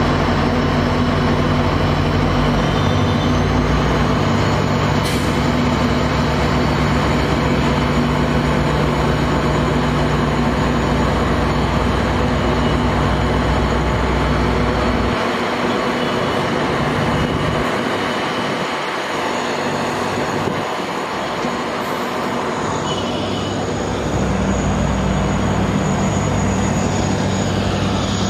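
Indian Railways LHB passenger coaches rolling past a platform: a steady rush of wheel and running noise on the track. A low engine drone under it drops away about halfway through and comes back a few seconds before the end.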